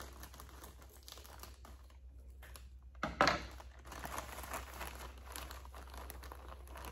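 Packaging crinkling and rustling as a bag of lily bulbs is opened and handled, with a sharper, louder rustle about three seconds in.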